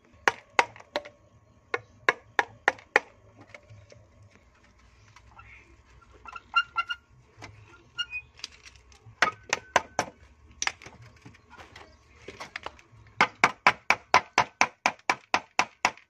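Hammer tapping glued PVC pipe and elbow fittings to seat them on a water pump's outlet. It makes sharp knocks in irregular groups, then a fast run of about four taps a second near the end.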